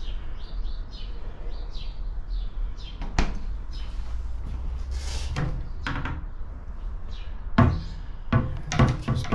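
Short electronic beeps repeating a few times a second, lower-pitched than a typical alarm. Several knocks and thuds come in the second half.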